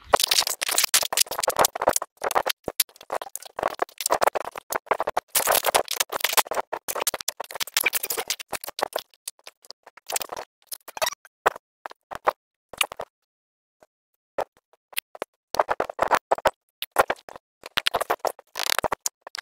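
Fast-forwarded sound of a dome tent being pitched: a rapid, irregular scratchy clatter of nylon fabric and poles that drops out for about two seconds past the middle.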